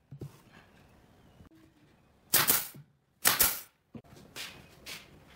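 Pneumatic nail gun firing twice, about a second apart, driving nails into pine slats; each shot is a sharp burst lasting under half a second. Fainter knocks follow near the end as the next wooden slat is set in place.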